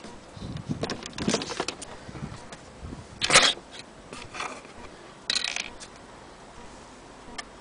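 Handling noises on an antique wall clock: scattered clicks, knocks and metallic clinks, with a loud scrape about three seconds in and another a couple of seconds later.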